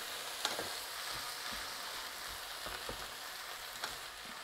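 Chopped tomatoes and onions sizzling steadily in hot olive oil in a frying pan, with a wooden spoon stirring and giving a few light scrapes and taps against the pan.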